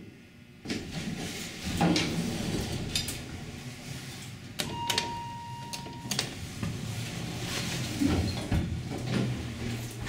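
Dover Impulse hydraulic elevator car with button clicks and its sliding doors running closed, with a steady electronic beep about a second and a half long near the middle.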